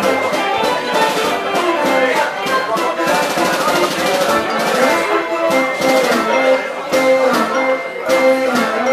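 Decap dance organ playing lively dance music, with pipe and brass-like melody notes over drum beats.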